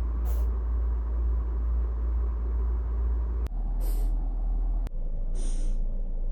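A Scottish Fold cat sneezing: three short hissy sneezes, about a second in, around four seconds and around five and a half seconds, over a loud steady low rumble.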